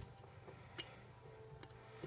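Near silence, with a few faint light clicks of fingers handling a small metal tin lid.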